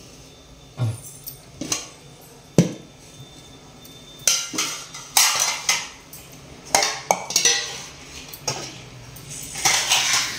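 Stainless steel serving bowls, lids and pots clinking and knocking against each other and the stone counter as they are handled and set down: a few separate knocks, then clusters of clinks through the second half.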